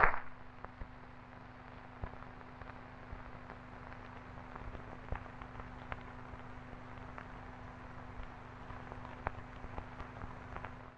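Background noise of an old television soundtrack: a steady low hum under a faint hiss, with scattered crackles and clicks throughout. The closing music stops right at the start.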